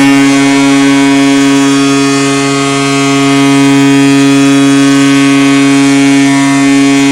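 Ice hockey arena goal horn sounding one long, steady, loud blast.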